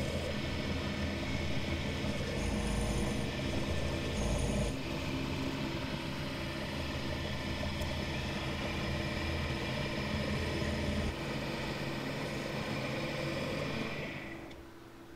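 The milling spindle of a Shoptask lathe-mill combo running with an end mill cutting a small eccentric casting: a steady mechanical drone with several fixed pitches and a few brief high cutting hisses. The sound dies away near the end.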